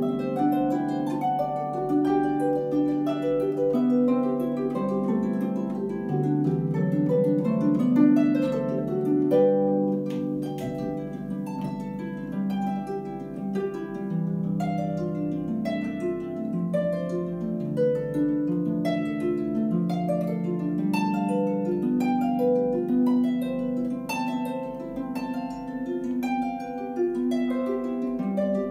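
Solo harp playing: a steady flow of plucked notes and chords, with low bass strings left ringing under the melody.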